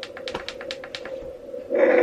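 Output of a handheld fetal Doppler's speaker: a steady hum with a quick irregular run of sharp clicks and crackles for about the first second, then a louder rush near the end.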